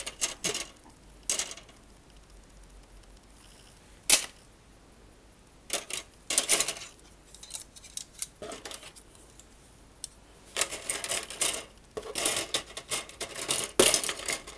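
Plastic model kit sprues being shifted and lifted in a cardboard box: scattered light plastic clicks and rustles, a sharp click about four seconds in, and a busier stretch of clattering near the end.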